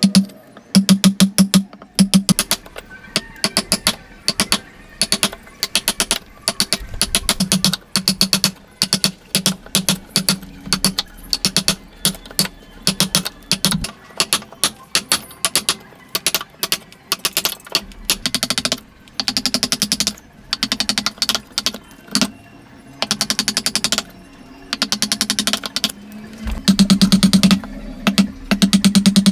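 Mallet striking a chisel's handle, chopping a notch into a hardwood beam: quick runs of sharp knocks, several a second, with short pauses between the runs.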